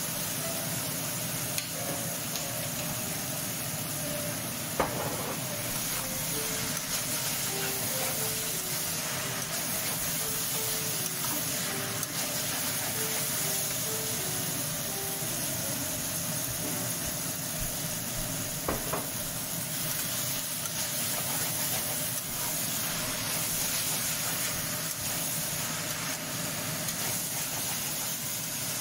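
Shredded potatoes sizzling steadily in a hot wok as they are stir-fried and turned with a metal spatula. There are two sharp knocks of the spatula against the wok, about five seconds in and about two-thirds of the way through.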